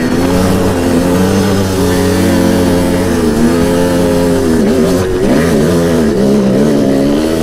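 Two-stroke dirt bike engine running at low revs, with the pitch dipping and rising a few times in the middle as the throttle is worked.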